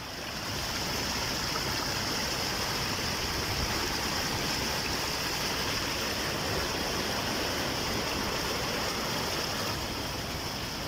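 Fast-moving floodwater rushing in a river in spate: a steady, dense noise of turbulent water that swells up in the first second.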